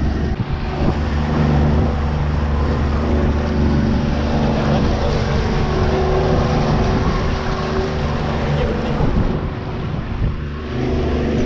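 90 hp Yamaha outboard motor running steadily at trolling speed, a low hum over a broad hiss.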